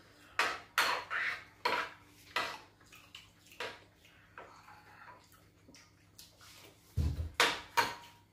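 Metal spoons clinking and scraping against china bowls and plates while eating, a string of sharp clinks in the first few seconds, then a cluster of louder knocks near the end, the first with a dull thump.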